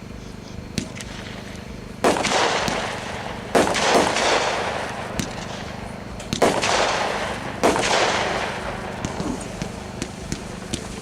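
Consumer multi-shot firework cake (Forever Diamonds by Brothers, 35 shots) firing: about five loud bangs, each trailing off in about a second of crackle, with lighter pops near the start and again toward the end.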